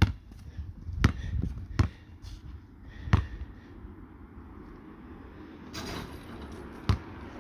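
Basketball dribbled on asphalt: four sharp bounces in the first three seconds or so, the last the loudest. Another single bounce comes near the end, after the shot.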